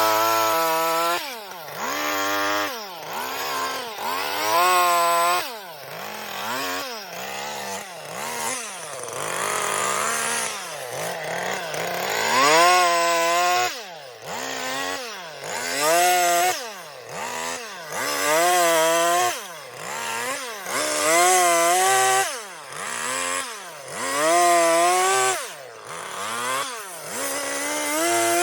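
Chainsaw carving into a wood block. The engine is revved up and let fall back again and again, roughly once a second.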